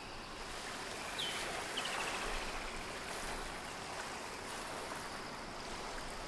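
Steady rush of flowing river water, with a couple of short, high bird chirps a little over a second in.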